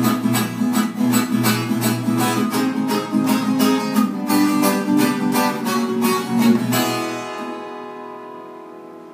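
Viola caipira, the Brazilian ten-string folk guitar, strummed in quick repeated strokes, about three a second, playing a short riff. About seven seconds in the strumming stops and a last chord is left ringing, fading out.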